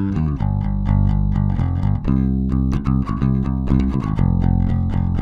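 Warwick Pro Series five-string electric bass played fingerstyle: a quick run of plucked notes, each with a sharp attack.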